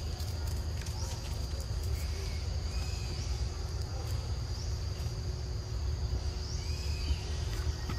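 Forest ambience: a steady high-pitched insect drone, with short chirping calls recurring every second or so and a low rumble underneath.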